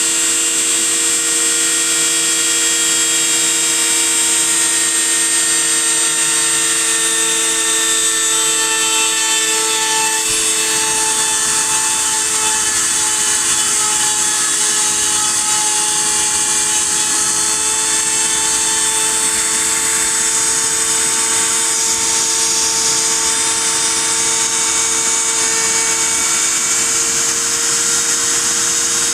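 Spindle motor of a small CNC machine used for milling printed circuit boards, running steadily with a constant whine over a high hiss.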